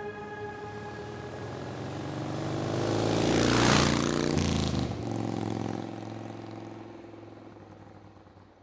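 A motor vehicle drives past. Its engine and tyre noise build to a peak a few seconds in, the engine note drops in pitch as it goes by, and the sound then fades away.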